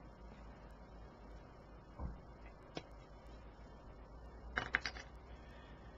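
Plastic model-kit sprue being handled: a soft knock about two seconds in, then a few light plastic clicks and rattles near five seconds, over a faint low room hum.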